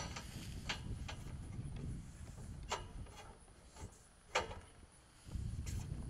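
Steel top rail of a hay feeder frame knocking and clinking against the upright posts as it is worked into place: about six sharp metal knocks, the loudest at the very start and again about four seconds in.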